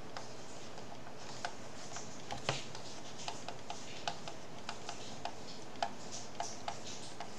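Stylus tapping and clicking on a tablet screen during handwriting: irregular short clicks, a few a second, over a steady faint hiss.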